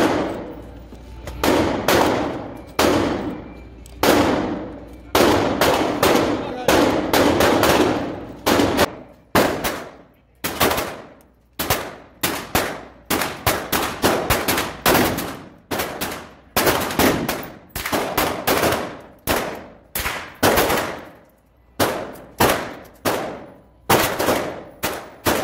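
Semi-automatic pistol fired over and over in an indoor shooting range: a long string of single shots at an uneven pace, some in quick pairs, each followed by a short echo off the range walls.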